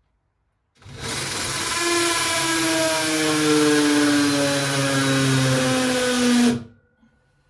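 Cordless drill boring into a wall for a wall plug. It starts about a second in, runs loud and steady with the motor's pitch slowly sinking, and stops near the end.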